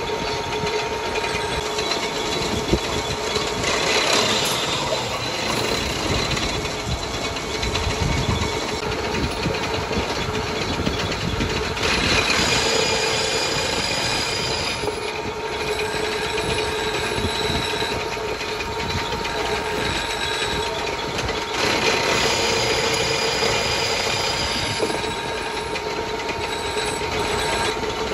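Metal lathe running while a single-point tool cuts the external thread on a steel truck axle spindle. A steady machine hum with cutting noise over it, growing louder three times for a few seconds.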